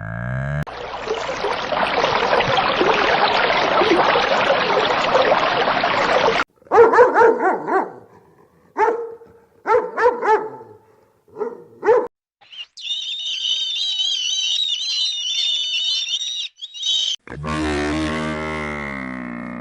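A run of different animal sounds one after another, among them a dog barking in a string of short barks. A loud noisy stretch comes first, and a high warbling call and a low drawn-out call come near the end.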